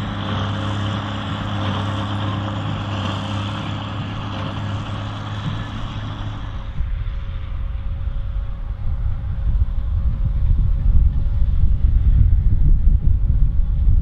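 Ford TW30 tractor's six-cylinder diesel engine running steadily under load, pulling a New Holland 4860S big square baler whose machinery runs along with it. About halfway through, the sound shifts to a deeper, louder and more uneven rumble with a steady hum above it.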